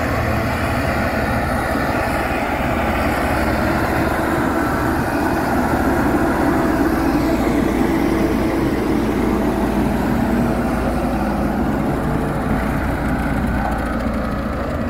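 Müller VAP70 single-drum road roller's diesel engine running steadily as the steel drum rolls over loose gravel to compact it.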